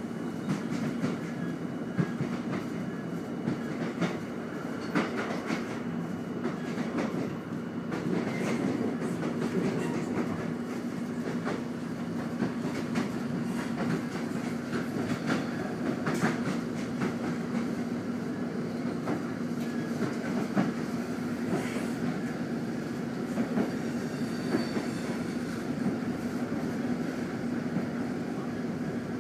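Interior of a moving diesel passenger train: a steady hum and rumble of the carriage running along the track, with irregular clacks of the wheels over rail joints.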